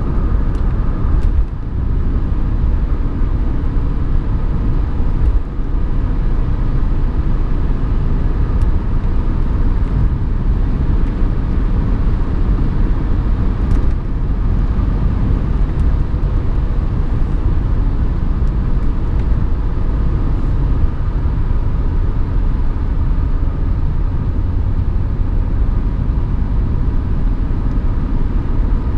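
Mercedes 190D's 2.5-litre five-cylinder turbodiesel (OM602) running steadily under way, heard from inside the cabin together with road and tyre rumble. The level dips briefly about one and a half seconds in and again about five and a half seconds in.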